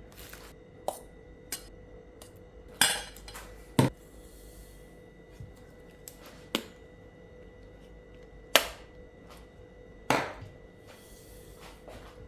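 Kitchen clatter: a series of sharp knocks and clinks of utensils and dishes, about eight in all, spaced irregularly, with a couple of brief scraping hisses between them.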